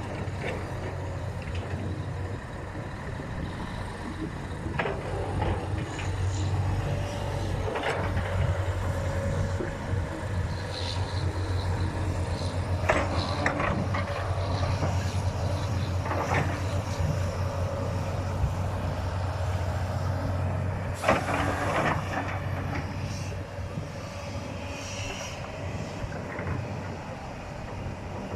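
Excavator loading a dump truck: heavy diesel engines run with a steady low drone, broken by about five clanks and crashes as loads hit the steel bed. The loudest comes about three quarters of the way through.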